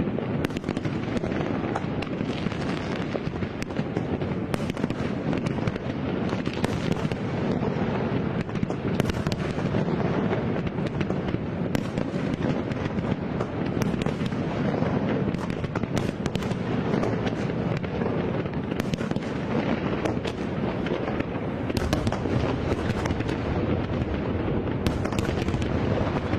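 Fireworks display going off in a continuous run of overlapping bangs and crackles, with no pause between them.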